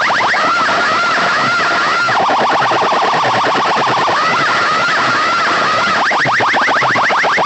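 Electronic siren and alarm effects played loud through a large DJ sound system. It moves from fast repeated upward sweeps, to a warbling wail, to a rapid run of short chirps in the middle, then back to the warble and, near the end, the fast sweeps.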